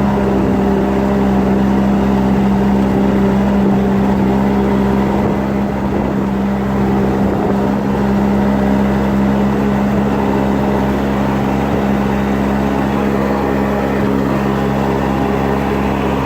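Vehicle engine running steadily, a constant droning hum that holds the same pitch throughout.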